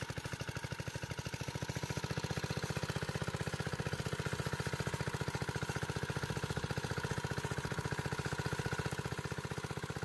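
Walk-behind tractor's small engine running steadily under load as it pulls a spinner potato digger through the soil, with a fast, even firing beat.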